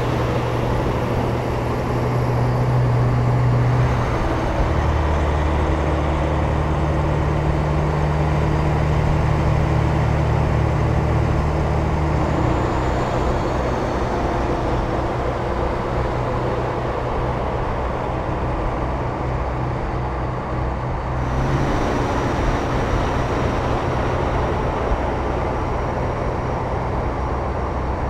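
Diesel semi trucks pulling trailers driving past in convoy: a steady low engine drone with tyre and road noise, its pitch and mix shifting a few times as one truck gives way to the next.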